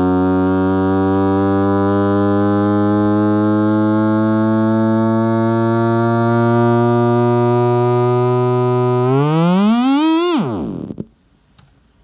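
Small white desktop computer speaker playing a low test tone from a tone generator: a loud, buzzy tone thick with overtones, creeping slowly up in pitch. Near the end it sweeps quickly up, swoops back down and cuts off.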